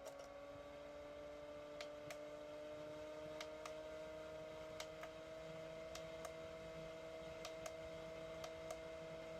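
Arctic Air Turbo Chill evaporative cooler's small fan motor running, a faint steady hum whose pitch creeps up slightly in the first few seconds as it comes up to speed, then holds. A few faint ticks are scattered through it.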